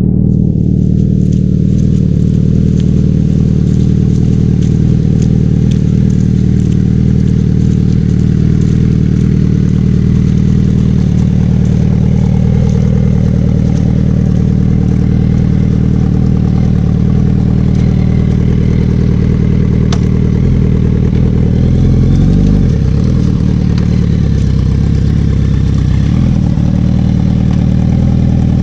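Motorcycle engine running steadily at low revs as the bike crawls along slowly, its pitch wavering briefly late on.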